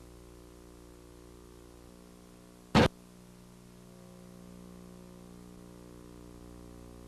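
A low, steady electrical hum with one short, loud pop of noise almost three seconds in.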